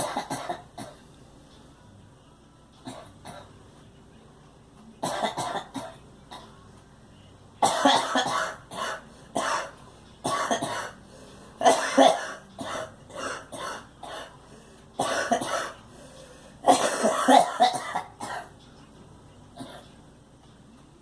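A girl coughing in repeated fits: clusters of several quick coughs with pauses of a second or two between them, the strongest fits about a third of the way in, in the middle and near the end.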